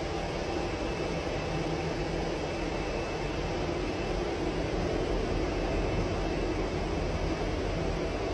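SASE PDG-5000 planetary diamond floor grinder running steadily as it grinds a concrete floor, an even, continuous machine noise with a faint high whine.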